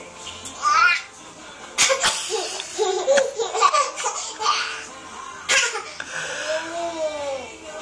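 A person giggling in bursts of laughter, broken by short sharp coughs, with a long falling laughing sound near the end.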